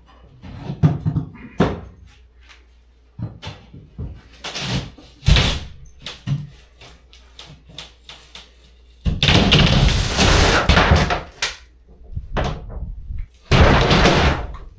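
Interior wall demolition: a string of separate knocks and bangs, then a long crashing stretch about nine seconds in and a shorter one near the end.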